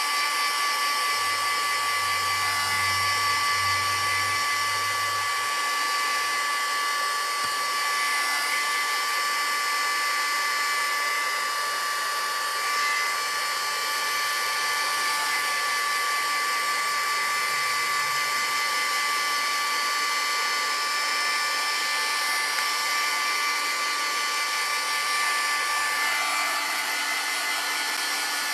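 Handheld craft heat tool running steadily, blowing hot air to dry tacky gel-printed paper. It makes a continuous airy rush with a steady high fan whine.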